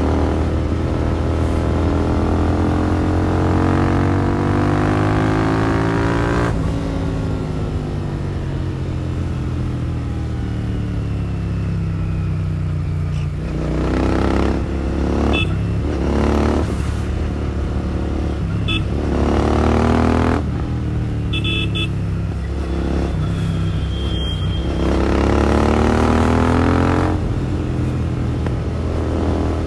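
Royal Enfield Continental GT650's 648 cc parallel-twin engine, breathing through a Powerage short cone aftermarket exhaust, under way on the road. It pulls up through the revs for about six seconds, drops off sharply, and winds down on a closed throttle. Then come a few shorter pulls, the last and longest near the end before it drops off again, with a few short high beeps in the middle stretch.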